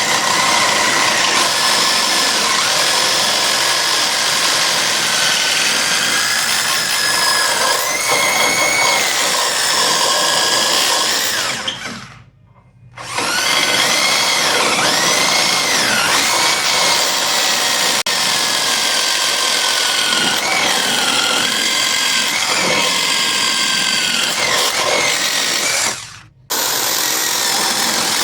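Power drill boring holes into the floor for the M20 anchor bolts that hold down a power hammer, running continuously; it stops briefly twice, about twelve seconds in and again near the end, before starting again.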